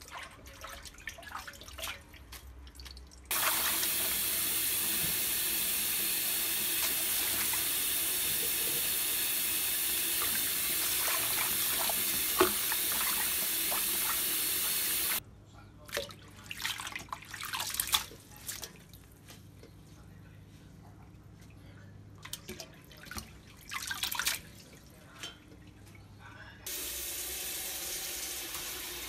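Kitchen tap running full into a sink for about twelve seconds, switched on and off abruptly, followed by light clattering and knocks. A quieter steady hiss starts near the end.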